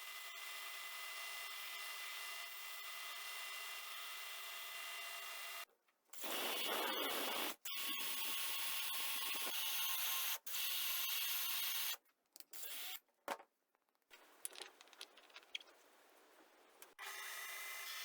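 Power tool working wood: a steady motor whine, then louder rough abrasive rubbing on wood, cut off abruptly several times, before the steady whine returns near the end.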